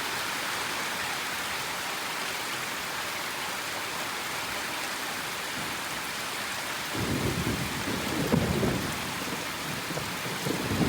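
Steady heavy rain, with thunder rumbling in from about seven seconds in and swelling twice.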